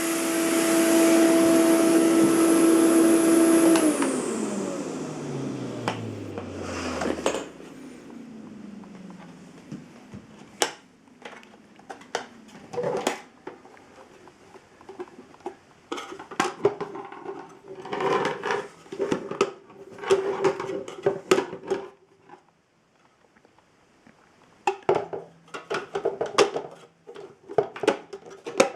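Electrolux Euroclean UZ930 vacuum cleaner's 1000 W motor running steadily, then switched off about four seconds in, its hum falling in pitch as it winds down over about three seconds. After that come scattered clicks, knocks and rattles of the machine being handled.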